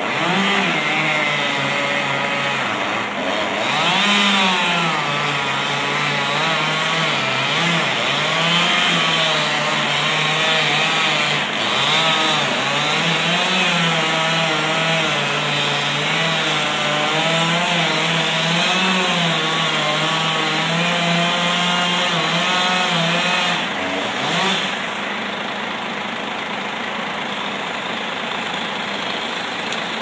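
Husqvarna two-stroke chainsaw cutting through a lime tree trunk, its engine pitch rising and falling under load, then stopping about 24 seconds in. An excavator engine idles underneath and is left running alone near the end.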